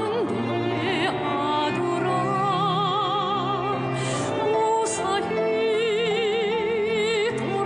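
Music: a melody line with strong vibrato held over steady accompaniment, without a break.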